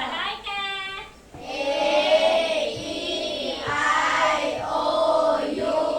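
A group of children's voices sounding together in unison, as a class chanting or singing phonics sounds.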